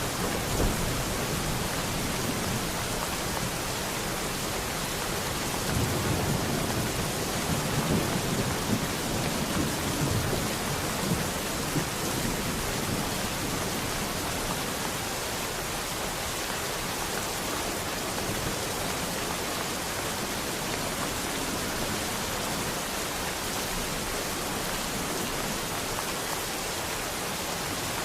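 Steady rain, with low rolls of thunder near the start and again from about six to eleven seconds in, then only the even hiss of the rain.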